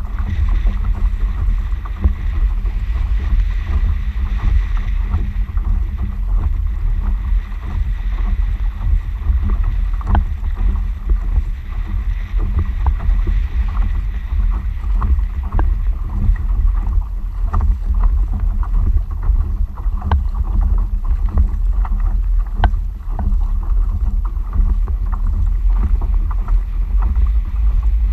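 Water lapping and splashing against a moving fishing kayak's hull, with small irregular slaps throughout, under steady wind rumble on the microphone.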